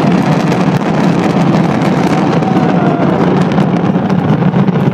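Fireworks crackling densely over a steady low rumble, with a faint falling whistle about halfway through.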